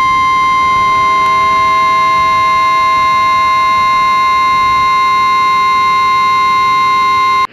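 Emergency alert attention tone from a mock EAS tornado warning: one loud, steady, high-pitched electronic tone held without a break, with fainter lower tones underneath. It cuts off suddenly at the end.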